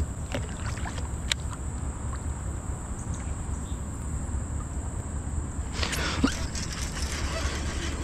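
Wind rumbling on the microphone and choppy water lapping against a kayak hull, with a few light clicks. About six seconds in, a louder hiss of water comes up.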